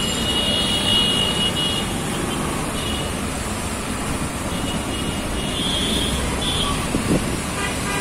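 Vehicle horns sounding in congested traffic: several high-pitched honks, a long one in the first second or so, a short one near three seconds and a cluster around the middle, over the steady rumble of engines and road noise.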